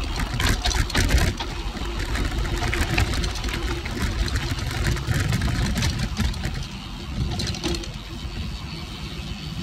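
Cervelo Aspero gravel bike on 650b wheels with 47c tyres coasting down a dirt singletrack: the tyres rolling over dirt and roots, with frequent clicks and rattles from the bike. A heavy low rumble of wind runs under it.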